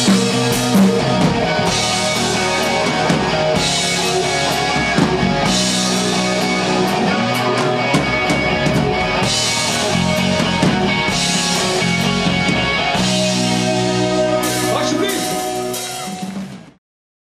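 Rock music from a band with electric guitars and a drum kit, with regular cymbal crashes; it fades out and stops just before the end.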